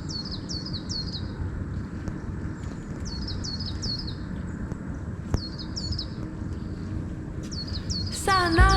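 A small bird chirping in short series of three or four quick, high notes, a series every two seconds or so, over steady outdoor background noise. Music comes in near the end.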